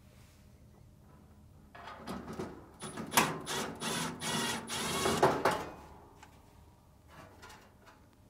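Metal clattering and scraping, with sharp knocks, from about two seconds in for some four seconds, as the heating element assembly of a Samsung dryer is unscrewed and worked loose.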